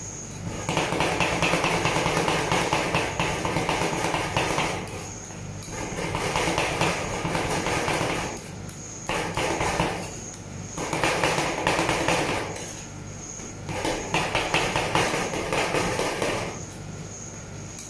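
Two metal spatulas chopping and scraping ice cream mixture on a stainless steel rolled-ice-cream cold plate: about five spells of fast clattering taps, each a few seconds long, with short pauses between them.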